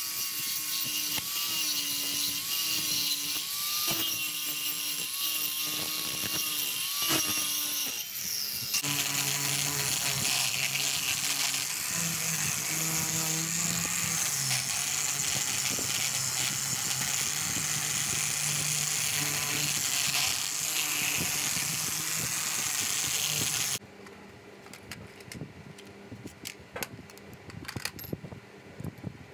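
An angle grinder with a sanding disc runs against the face of a wood slice, its whine wavering as it is pressed and eased. About eight seconds in it stops, and a lower-pitched power sander with a large sanding pad runs for about fifteen seconds. It then stops, leaving faint rustling and taps as the sawdust is brushed off by hand.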